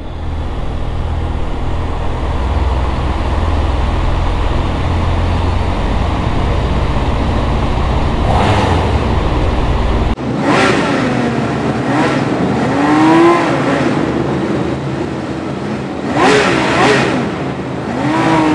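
Motorcycles riding at speed: a steady rumble of engine, wind and road noise that changes abruptly about ten seconds in. Then comes engine sound echoing inside a road tunnel, with the pitch rising several times as the bikes accelerate, once in the middle of that stretch and again near the end.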